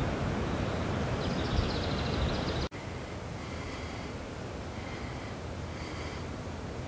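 Woodland ambience of wind-like rustling noise with short high-pitched bird calls: a quick run of notes early on, then brief calls repeating about once a second after the background drops to a quieter level about two and a half seconds in.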